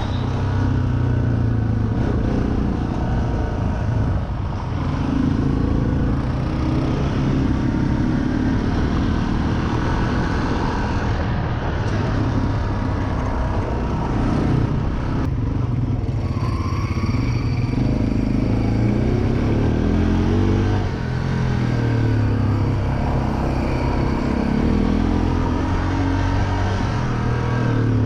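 Honda ATV engine running as the quad rides along a dirt trail, the engine note rising and falling with the throttle.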